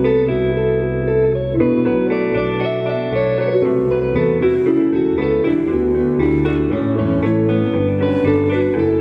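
Live indie rock band playing, with guitars out front over steady bass notes.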